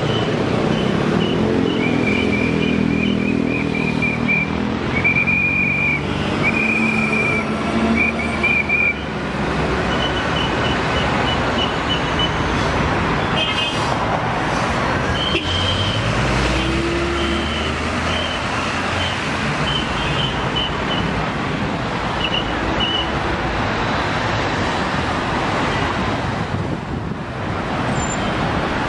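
Busy street traffic running steadily. A vehicle engine is loudest in the first several seconds, and another rises in pitch briefly midway. Short runs of high chirping repeat on and off through much of it.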